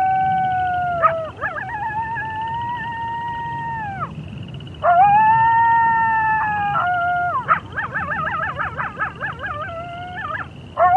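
Several wolves howling together in overlapping voices. Long, steady howls fall off in pitch at their ends, and partway through they break into quavering, wavering howls and yips.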